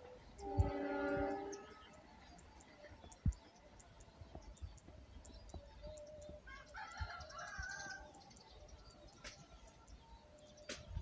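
A distant two-tone horn, most likely a train horn, sounds once for about a second near the start, followed by faint bird chirps.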